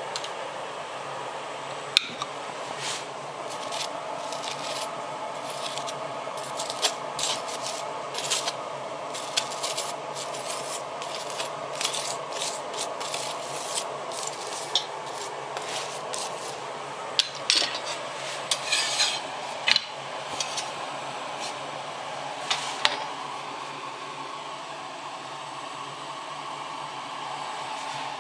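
A metal spoon clinking and scraping against a glass jar and a stainless steel pot as butter is spread over flatbreads, in many short irregular clinks that die away a few seconds before the end. A steady hiss from a lit gas burner runs underneath.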